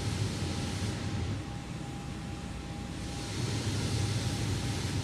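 Steady rushing noise with a low rumble from the rocket's launch pad. The hiss swells twice, and a faint steady high tone runs underneath.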